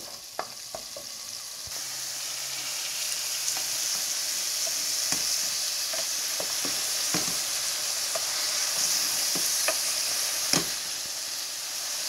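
Ground spices (turmeric, curry powder, garlic powder) sizzling in hot oil in a pan. The sizzle grows louder about two seconds in, with scattered clicks and knocks of a spoon stirring against the pan.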